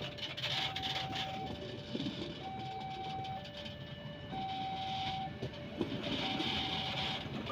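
Passenger coaches of the Gajayana train rolling past with a steady rumble of wheels on rail and patches of hiss. Over it a two-tone electronic alarm alternates a higher and a lower note about once a second, in the manner of a railway level-crossing warning.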